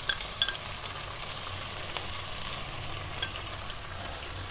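Beef pieces and spice masala frying in a nonstick wok, a steady sizzle, with a few light clicks near the start.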